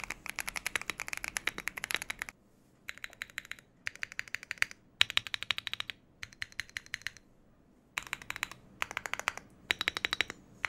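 Mechanical keyboard with lubed Akko Wine White linear switches and Akko BRED keycaps, typed on rapidly. A continuous run of keystrokes lasts about two seconds, then gives way to short bursts of fast clacks separated by brief pauses.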